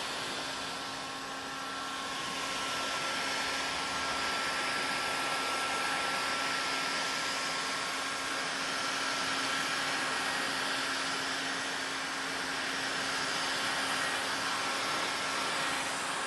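Heat gun blowing steadily, with a thin steady whine over its airflow.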